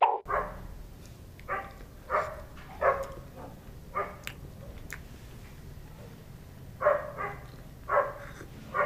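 A dog barking: about ten short barks at irregular intervals, with a gap of a few seconds in the middle.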